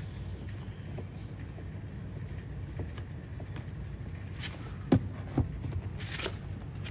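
Screwdriver work on a car door panel, driving in the screw under the door handle: two sharp clicks about five seconds in, then a short scraping hiss, over a steady low rumble.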